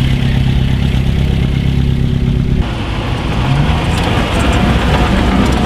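Classic car engines at low speed, rolling slowly past. A steady low engine note changes abruptly about two and a half seconds in to a second car's engine, which rises briefly in pitch as it is revved a little.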